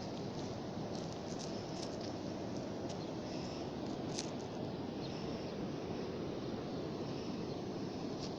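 Sea waves washing steadily on the shore in a continuous low rush, with a few faint, short high-pitched chirps over it.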